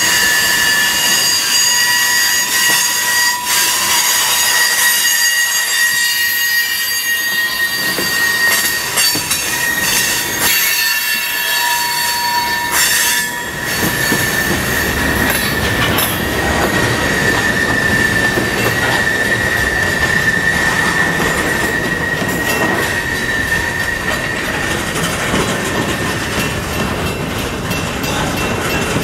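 Freight cars rolling slowly past on a curve, with the wheel flanges squealing in several high, steady tones against the rail. The squeal is strongest in the first half and mostly fades after about halfway, leaving the rumble and clatter of the wheels on the track.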